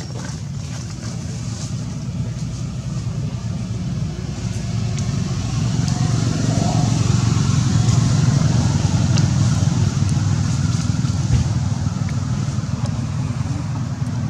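Steady low engine hum of a motor vehicle, growing louder to a peak about halfway through and easing slightly after.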